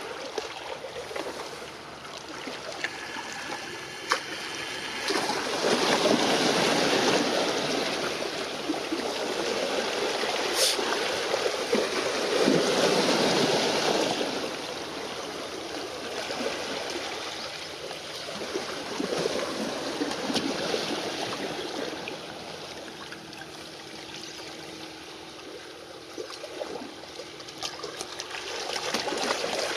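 Small waves lapping and splashing at the water's edge, swelling louder for several seconds in the middle. A faint steady hum comes in during the last third.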